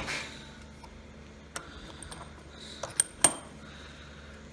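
A few light metallic clicks and clinks as a soldered copper pipe is handled: one small click a bit over a second in, then two sharper ones close together about three seconds in, over a low steady workshop background.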